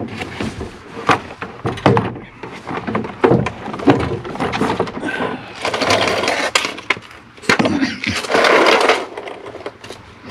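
Interior door handle parts being worked into place in a truck door: a run of sharp clicks and knocks, with two longer scraping stretches about six and eight seconds in.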